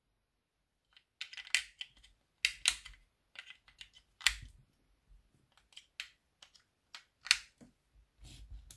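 AAA batteries and hard plastic parts clicking and tapping as they are fitted into a Playmobil toy car's battery-powered light module: a string of irregular sharp clicks, a few with a dull knock.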